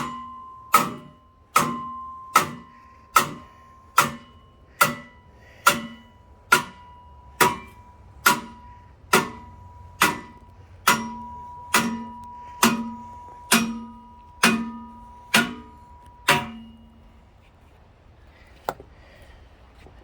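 Loud, steady hammer blows on metal, a little less than one a second, each leaving a clear metallic ring. About twenty strikes, then they stop about sixteen seconds in.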